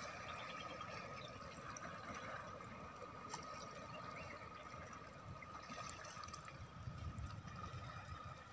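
Shallow seawater faintly trickling and lapping among rocks, with an uneven low rumble and a steady faint high tone.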